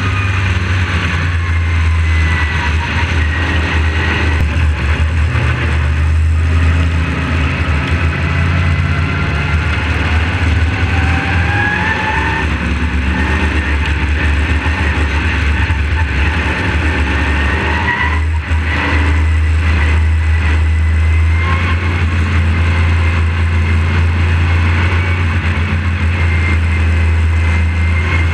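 Modified race car's engine at racing speed, heard close up from an onboard camera: a steady deep drone with its pitch rising and falling through the turns, and a brief drop in level about two-thirds of the way through.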